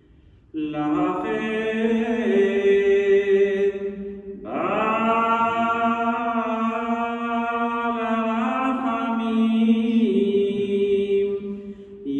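A cantor's solo Hebrew funeral chant: one man's voice through a microphone, singing long held notes that slide between pitches, with a short breath about four seconds in.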